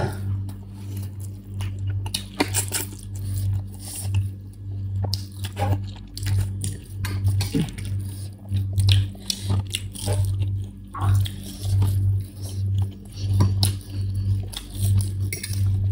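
People chewing and slurping instant ramen noodles, with scattered short clicks, over a steady low beat pulsing about one and a half times a second.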